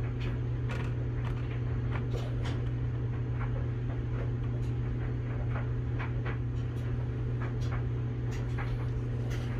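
Steady low hum of running shop equipment, with scattered light clicks and taps throughout.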